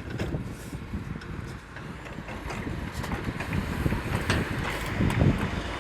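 Low, uneven vehicle rumble with wind buffeting the microphone.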